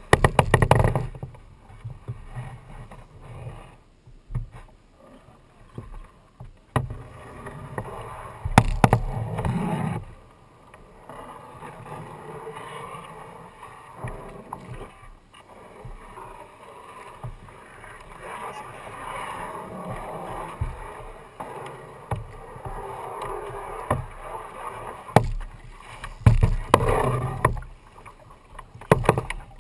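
Double-bladed kayak paddle strokes: the blades dipping and splashing in the water, water dripping off them, and a couple of sharp knocks, as of the paddle against the plastic hull.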